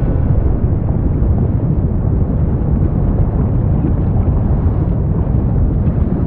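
Deep, steady rumbling of the Fagradalsfjall volcanic eruption, lava churning in the crater, with no music over it.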